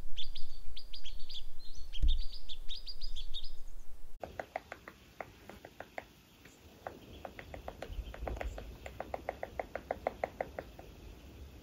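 Small birds chirping for the first few seconds. Then a woodpecker taps steadily on a dead pine snag, about five knocks a second, for several seconds.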